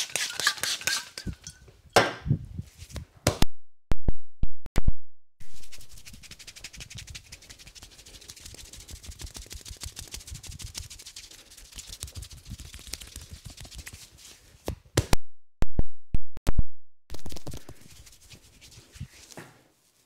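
Hands-on head massage: a few quick spray-bottle squirts to start, then loud, sharp hand strikes on the head in clusters, with a long stretch of rapid soft rubbing and patting of the hair between them.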